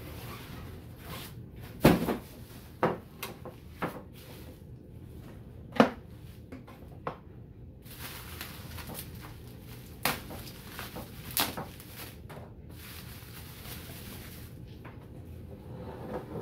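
Bubble wrap rustling and crinkling as it is handled and pulled loose from a carved wooden clock case. Several sharp knocks of the wooden case against a wooden tabletop come through it, the loudest about two seconds in and again near six seconds.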